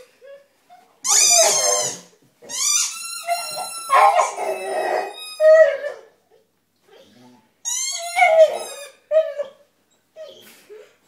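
Staffordshire bull terrier x Rottweiler cross whining and crying at its toy: a string of about six high-pitched, drawn-out cries, some sliding up or down in pitch, with short pauses between them.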